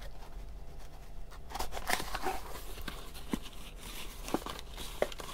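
Cardboard packaging handled by cotton-gloved hands: light rustling and scraping with a few small clicks as a black cardboard insert of an earphone box is opened.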